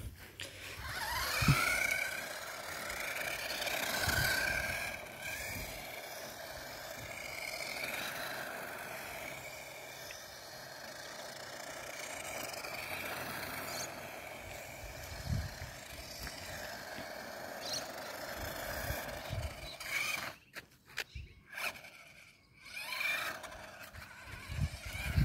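A 1/18-scale RC truggy (HBX Hailstorm) driving on asphalt: the whine of its 380 brushed electric motor and gears over tyre noise, rising and falling in pitch with the throttle. It cuts out in short gaps near the end.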